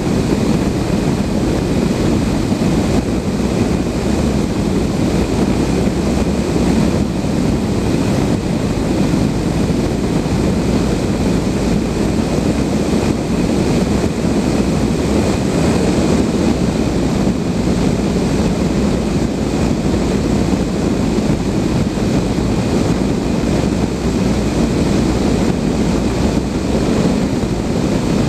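Steady rushing airflow and wind noise in the cockpit of a Blanik L-13 two-seat glider in flight, loud and unbroken throughout.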